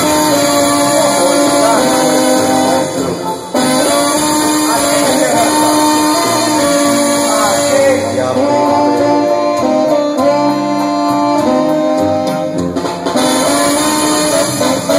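Live Mexican banda playing a passage with no singing, its brass section of trumpets and trombones carrying the melody. There is a brief break in the music about three seconds in.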